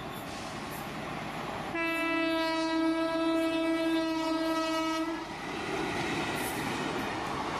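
Indian Railways WAP-4 electric locomotive sounding one steady horn blast of about three seconds, starting about two seconds in. The horn sounds over the steady running noise of the locomotive and its passenger coaches passing through a station without stopping.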